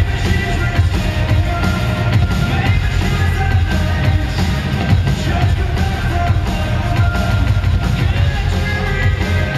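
A live rock band playing loud through an arena PA, heard from the stands: heavy bass and a drum kit under sustained synth and guitar lines, with no break.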